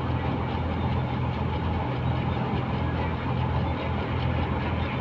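Rice combine harvester's engine running steadily with a deep, even hum and a mechanical rush over it.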